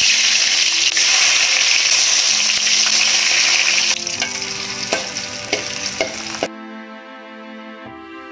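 Shallots and garlic sizzling loudly as they fry in hot oil in a stainless steel wok, with tomatoes and chilies added for sambal. About four seconds in, the sizzle eases and there are a few sharp taps of a metal spatula on the wok. After about six and a half seconds the frying sound cuts off, leaving soft background music.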